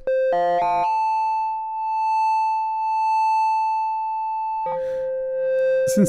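Sine-wave synth tones from an Elektron Digitone, passed through the Elektron Analog Heat MKII's analog circuits, which add harmonics to the otherwise pure tone. A quick run of short notes comes about a third of a second in. Then one note is held steady for about four seconds, and a lower steady note takes over near the end.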